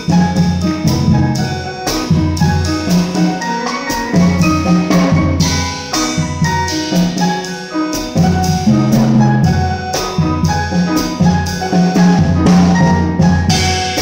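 A small jazz combo playing: drum kit with cymbal strokes, grand piano chords and a low walking bass line, with electric guitar.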